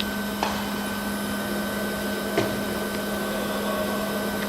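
Steady machinery hum with a constant high whine over it, broken by faint clicks about half a second in and again about two and a half seconds in.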